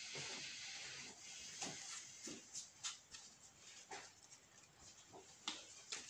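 Yu-Gi-Oh trading cards being shuffled by hand: a soft hiss of cards sliding, then scattered light clicks and snaps of the cards.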